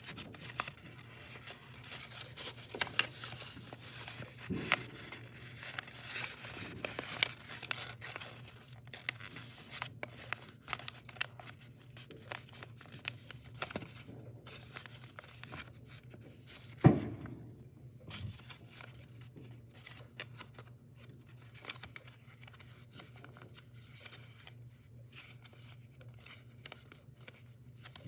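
Origami paper rustling and crinkling as it is folded and creased by hand, busy at first and sparser in the second half. One sharp knock stands out about two-thirds of the way through.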